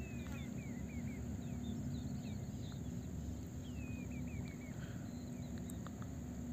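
Gondola ropeway station machinery running with a steady low hum and one held tone. Runs of four or five short falling chirps come through it several times.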